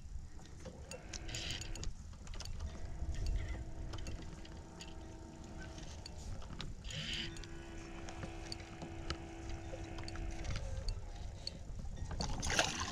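Wind rumbling on the microphone with small handling clicks, and a steady low hum that runs for about three seconds, stops, and comes back for about three more.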